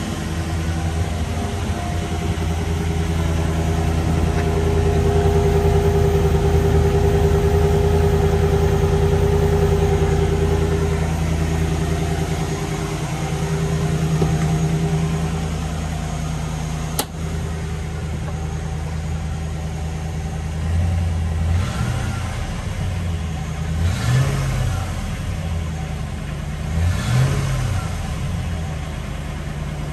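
The 4.6-litre V8 of a 1993 Land Rover Defender 110 idling steadily as it warms up from a cold start, a little louder in the first ten seconds. A single sharp click, the driver's door, about halfway through, then the engine is revved briefly three times near the end.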